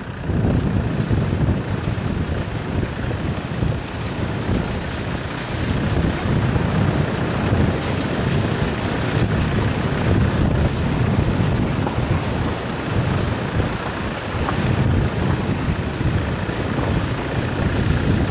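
Wind buffeting the microphone of a camera on a moving vehicle, over the rumble of the vehicle driving along a rough, muddy road.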